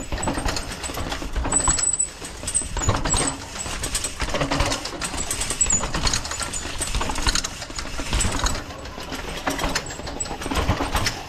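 Mountain bike rattling over a rough dirt trail: a dense, irregular run of quick knocks and clatter.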